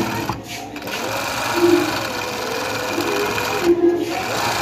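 Industrial pico edging sewing machine running, stitching along the edge of a dupatta, easing off briefly about half a second in and again near the end.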